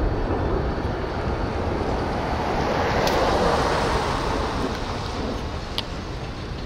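Dual-rear-wheel pickup truck driving past close by, its tyre and road noise swelling to a peak about three to four seconds in and then fading, over a low wind rumble on the microphone.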